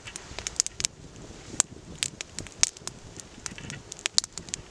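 Small wood campfire crackling, with irregular sharp pops and snaps, several a second.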